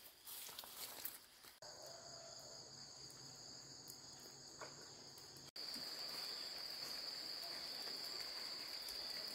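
Insects trilling in a steady, high, even tone that starts abruptly about a second and a half in and jumps louder at about five and a half seconds. Before that, brief rustling of steps through tall grass.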